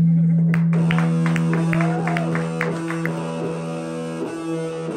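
A live rock band playing: electric guitar, bass guitar and drums. A long low note is held throughout, with quick sharp strikes about four a second from about half a second in to about three seconds in.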